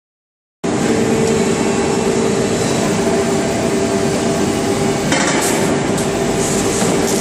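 Repkon rim roller machine running as it rolls a wheel rim: loud, steady industrial machine noise with a constant hum under it. It starts abruptly about half a second in.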